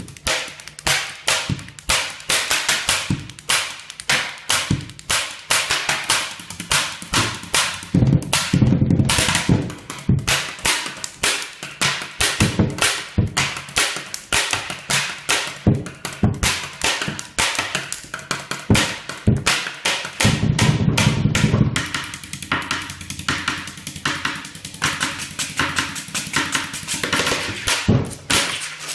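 A rhythmic drumming beat tapped out with ordinary pens: fast, even runs of sharp clicks and taps, with deeper booming hits about eight seconds in and again for a second or so around twenty seconds in.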